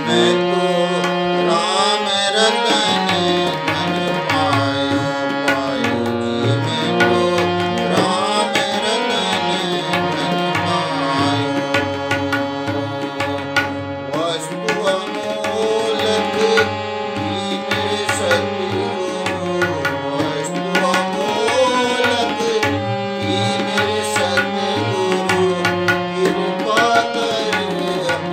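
Harmonium and tabla playing a devotional bhajan: sustained reed chords and melody over a steady tabla rhythm. A man's singing voice joins in about halfway.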